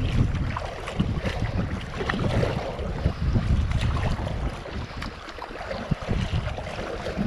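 Kayak paddling through river riffles: rushing, splashing water and the dip of paddle strokes, under heavy wind rumble on the microphone.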